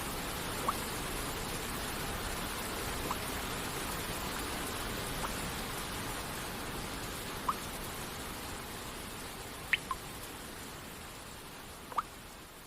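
Steady hiss of rain and falling water, with single water droplets plinking every second or two, each a short pip rising in pitch. The whole sound fades out slowly over the last few seconds.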